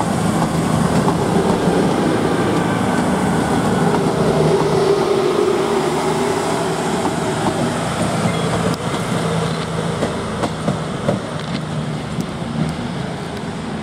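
Class 221 Super Voyager diesel-electric train pulling away, its underfloor diesel engines running under power with wheels clicking over rail joints. The sound fades gradually as the train draws off.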